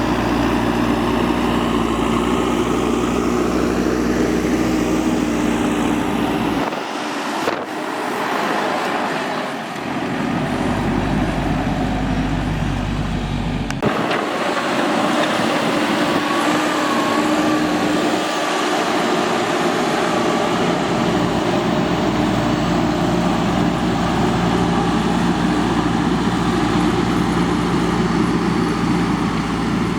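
A JCB 3DX backhoe loader's diesel engine running steadily while working. Its low rumble thins out twice for several seconds, about a quarter of the way in and again near the middle.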